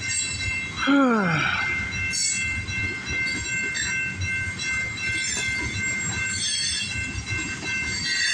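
Freight train of loaded ethanol tank cars rolling through a level crossing: a steady wheel rumble with a high, steady squeal over it and faint regular clacks. About a second in, a short, loud tone falls sharply in pitch.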